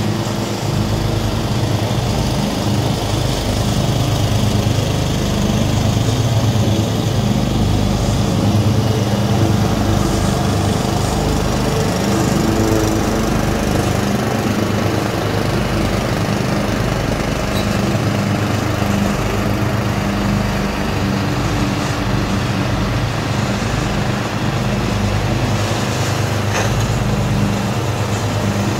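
Small engines of a 12.5 hp Craftsman riding mower and a 13.5 hp Swisher 60-inch pull-behind mower running steadily while mowing long grass.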